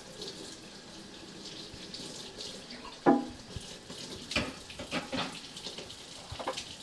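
Kitchen tap running as plastic parts of a baby food steamer are rinsed in a stainless steel sink. A sharp knock about three seconds in, the loudest sound, then a few lighter clacks of parts being handled.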